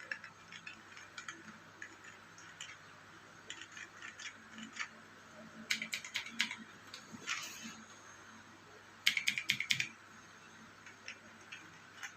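Typing on an ordinary membrane keyboard: fairly soft keystrokes in short irregular bursts, with a louder flurry about nine seconds in.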